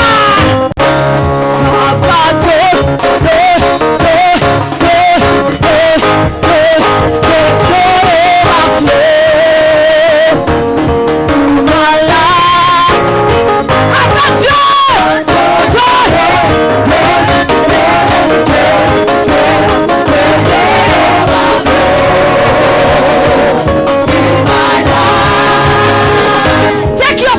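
Live praise-and-worship music: a band with guitar and a steady beat, with singing over it.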